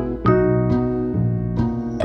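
Background keyboard music: piano-like notes over held lower chords, a new note every quarter to half second.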